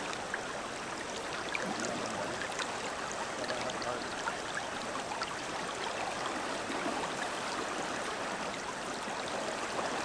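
Shallow river current rushing steadily over a rocky riffle.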